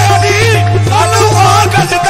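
Qawwali music: harmonium playing held notes under a man singing a wavering, ornamented melodic line.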